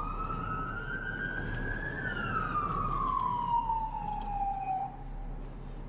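Police car siren giving one slow wail, its pitch rising for about two seconds and then falling away until it fades near the end, with the patrol car's road noise beneath.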